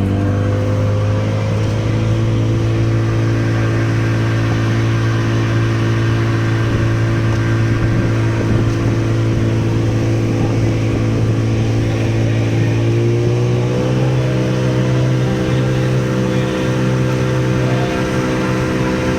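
Boat engine running steadily and loudly, its pitch rising slightly about a second in and again about two-thirds of the way through.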